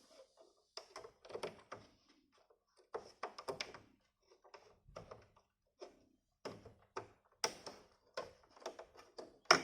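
Irregular clicks, taps and light knocks of hands handling a heatsinked M.2 SSD and the PS5's plastic and metal parts as the drive is angled into its expansion slot, with a louder knock near the end.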